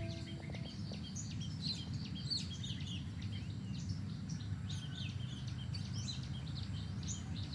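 Many small birds chirping and twittering in quick, overlapping calls, over a steady low rumble of background noise.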